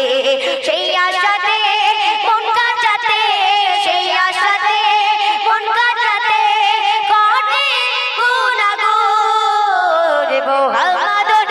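A woman's voice singing a Bengali Islamic devotional song (gojol) through a microphone, in long held notes that waver up and down.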